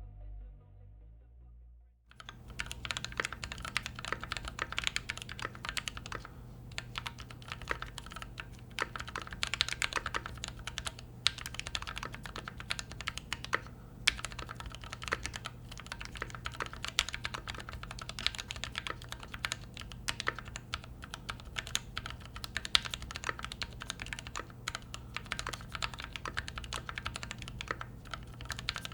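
Fast, continuous typing on a custom mechanical keyboard built on an aluminium Keychron Q3 with hand-lubed switches: a dense run of keystrokes that starts about two seconds in.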